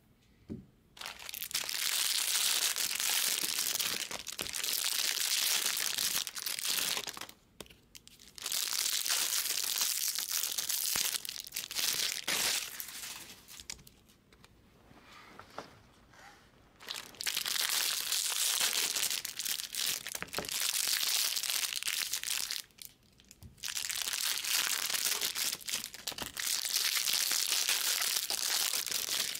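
Wrapped packs of trading cards and their cardboard boxes crinkling and rustling as the boxes are opened and the packs taken out and stacked. The sound comes in several spells of a few seconds each, with short pauses between.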